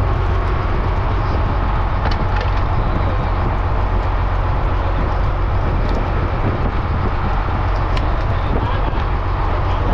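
A fishing trawler's engine running steadily, a deep constant drone, with a few faint clicks.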